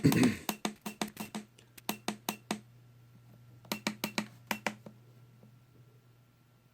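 Buttons on a V8X6 key cutting machine's control panel being pressed in quick succession while stepping through its menus: a fast run of sharp clicks, then a short second run about a second later, over a low steady hum.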